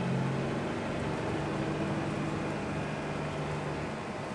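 Dodge pickup truck driving slowly on a dirt road, heard from inside the cab: a steady engine hum with tyre and road noise.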